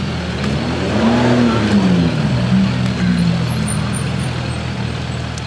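Suzuki Bandit inline-four motorcycle engine, pulling a sidecar outfit at low speed, its revs rising and falling twice.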